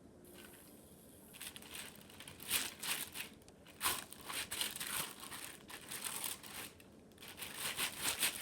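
Irregular crinkling and rustling of something being handled, starting about a second and a half in.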